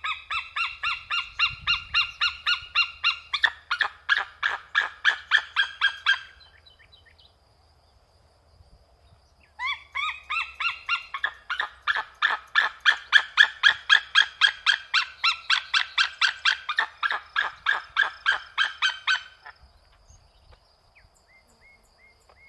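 Falcon giving long series of rapid, repeated high calls, about four or five notes a second. There are two series, the second longer, separated by a pause of about three seconds.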